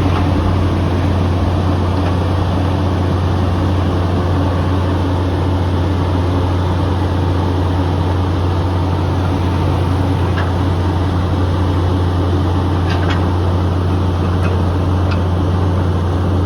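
Apollo A900 horizontal directional drilling rig running steadily, a loud, even engine drone heard from inside the machine. A few faint clicks come near the end.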